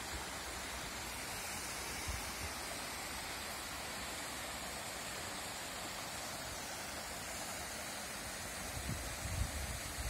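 Steady rushing of water from a small mountain-stream waterfall, about 6 m high, and the shallow river it falls into. A few low rumbles of wind on the microphone come in near the end.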